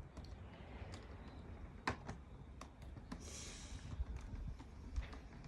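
Sphere Eco Spin manual washing machine being hand-cranked, turning anti-clockwise: faint irregular clicks and knocks from the handle and drum, with a brief swish a little past halfway.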